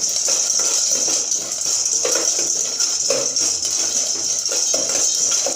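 Dry macaroni being stirred in hot ghee in a pan: the pasta pieces rattling and clicking against the pan and spoon over a steady frying sizzle.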